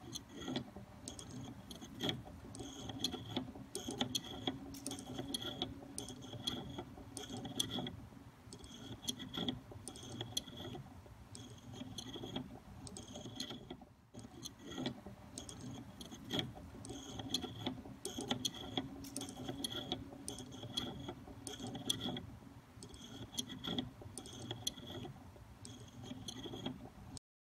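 Small wind-up automaton, a jointed figure on a wire chair, running: its clockwork mechanism and moving parts give a rapid, continuous clicking and rattling.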